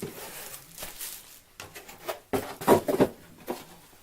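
Cardboard packaging being handled: rustling, then a quick run of knocks and scrapes a little past halfway, with one more shortly after.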